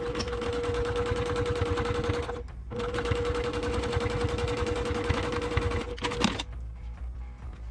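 Brother PQ1500SL straight-stitch sewing machine running fast while topstitching: a steady motor whine over rapid needle strokes. It stops briefly about two and a half seconds in, runs again for about three more seconds, and ends with a short sharp clatter.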